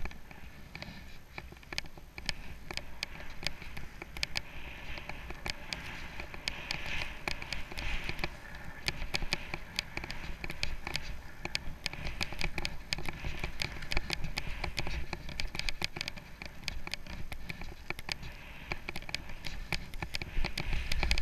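Skis running over snow during a fast descent: a steady hiss with a rapid patter of small clicks, over a low rumble of wind on the camera's microphone, and a louder burst right at the end.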